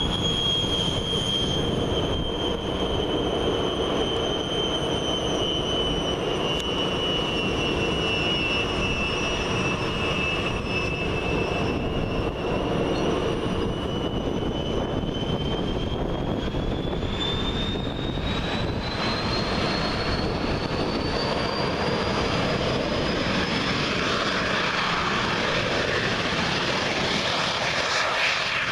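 Fouga Magister's twin Turbomeca Marboré turbojets running: a high whine over a steady rushing rumble. The whine sags slightly, then climbs steadily through the second half as the engines spool up for take-off.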